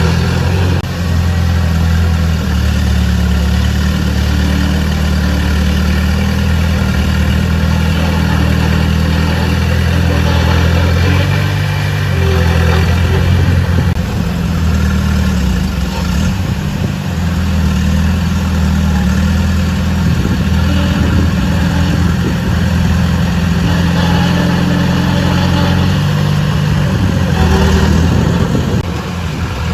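A heavy diesel engine of earth-moving machinery running steadily, with small changes in its note about a third of the way in and again near the end.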